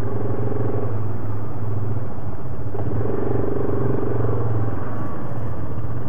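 ATV engine running steadily under way, its note swelling a little twice, near the start and about three seconds in.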